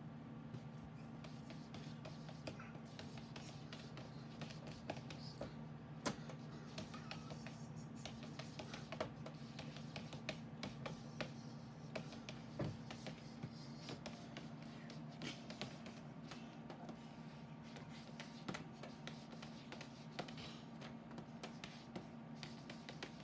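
A cat's paws tapping and scratching against a computer monitor's screen: scattered light taps, a few sharper ones, over a steady low hum.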